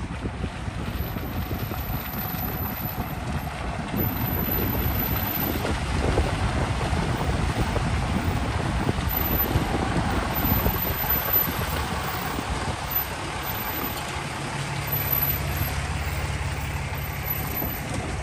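Pickup truck carrying a truck camper driving slowly up and past on a muddy dirt track, its engine running at low speed while it manoeuvres through a three-point turn. A steady low engine hum settles in near the end.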